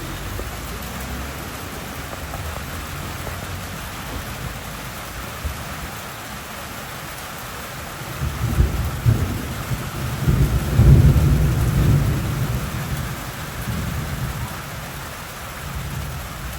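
Hurricane rain and wind in a steady rush, with two loud low rumbles past the middle, the second the loudest.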